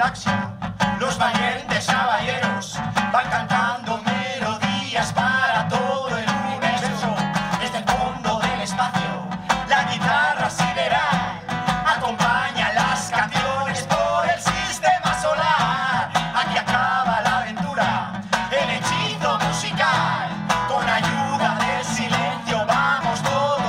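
A live song: an acoustic guitar strummed in a steady rhythm while a woman and a man sing together into microphones.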